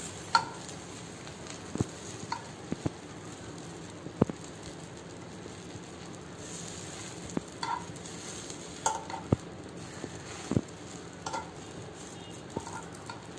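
Pav bread rolls frying lightly in a nonstick pan with barely any oil, giving a steady soft sizzle. Metal tongs turning the rolls click and scrape against the pan every second or two.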